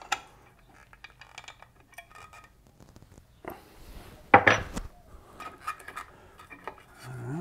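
Small bolts clinking in a hand and the black metal cover of a CNC controller box being lifted off and handled, with light metallic clicks and one louder clank a little past halfway.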